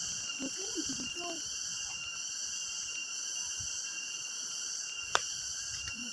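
Steady, high-pitched chorus of forest insects, shrilling without a break. Faint distant voices are heard in the first second or so, and there is a single sharp click about five seconds in.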